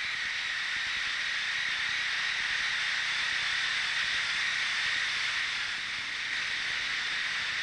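Abrasive wheel grinding severe exfoliation corrosion from an aluminum or magnesium part: a steady high whine over a hiss.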